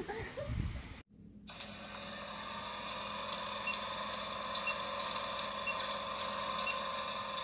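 A voice briefly, cut off about a second in, then a steady mechanical whirring hum with rapid clicking and a short high blip about once a second, over the end credits.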